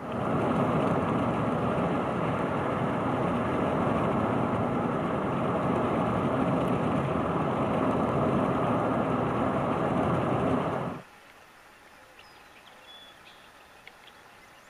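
Steady road and wind noise from a moving car. It cuts off abruptly about eleven seconds in, leaving quiet outdoor ambience with a few faint high chirps.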